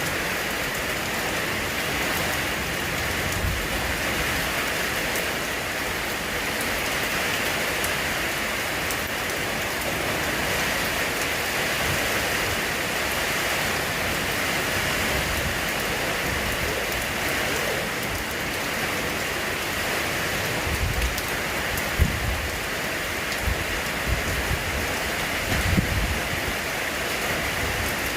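Steady rain falling, an even hiss. A few dull low thumps sound near the end.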